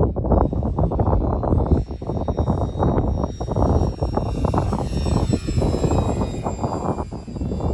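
Electric motor and propeller of a Durafly P-40 Warhawk RC plane whining faintly overhead, the pitch sliding down in the middle as it passes, under heavy wind buffeting on the microphone.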